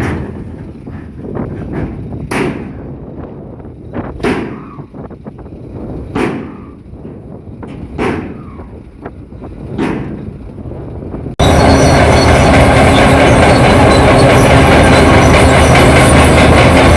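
Bulldozer at work: a low engine rumble with a sharp clank about every two seconds, then, about two-thirds of the way through, an abrupt jump to much louder, close engine and steel-track noise with steady whining tones in it.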